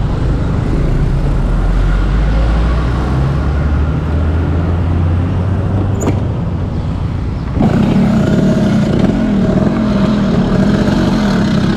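Restored red Vespa scooter with a 200cc engine, running while being ridden, with rushing wind noise. About seven and a half seconds in the sound jumps suddenly louder, with a wavering pitch.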